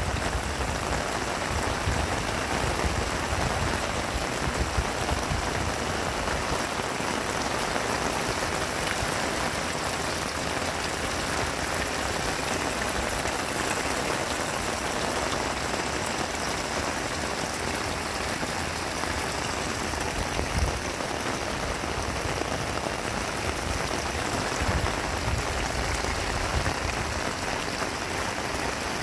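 Heavy rain falling steadily on a corrugated greenhouse roof and its clear panels, with water pouring from a downspout into a rain barrel.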